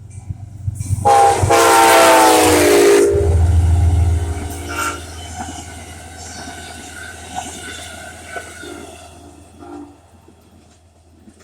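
Amtrak passenger train's locomotive horn sounding one long chord about a second in, its pitch dropping as the locomotive goes by. The locomotive's low rumble follows, then the passenger cars rolling past with clicks of wheels over rail joints, fading away.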